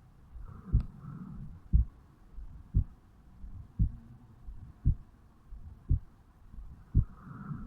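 A man's heartbeat heard over the mitral valve area of the chest, beating slowly and evenly at about one beat a second: resting heart rate just after waking.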